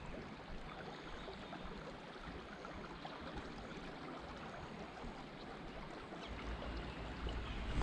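Faint, steady riverside ambience: an even soft hiss with no distinct events. A low rumble comes in about six seconds in.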